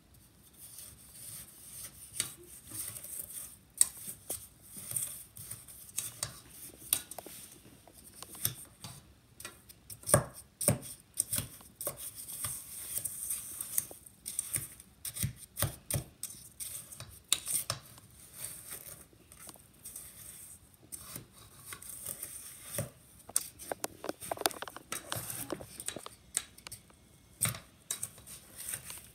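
Wooden spoon stirring and mashing snow in a stainless steel bowl: an irregular run of scrapes and knocks of the spoon through the snow and against the metal.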